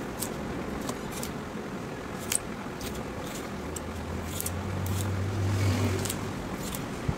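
Hand knife slicing a strip out of a heavy tyre's rubber sidewall: scattered short, sharp clicks and scrapes of the blade. A low engine hum swells in the middle and fades again.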